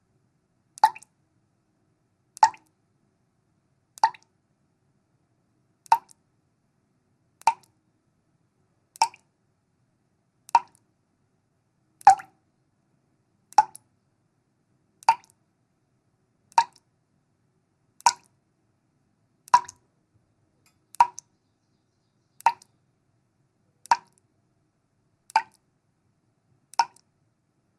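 Water drips from a leak, single drops falling at a steady pace of about one every second and a half, each a short, clean plop with silence between.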